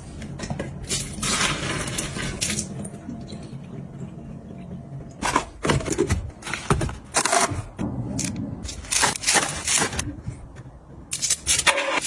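Fizzing hiss of foam from an effervescent cleaning tablet at first. Then a run of sharp clicks, taps and scrapes of hard plastic and metal items being handled.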